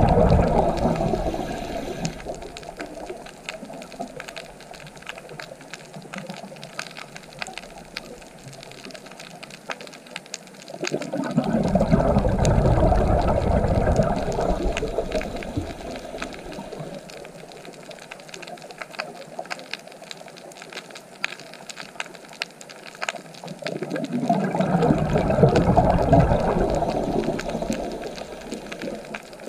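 Underwater recording of a scuba diver's exhaled bubbles gurgling in three bursts roughly twelve seconds apart, the first fading about two seconds in. A steady fine crackling of the reef fills the gaps between the bursts.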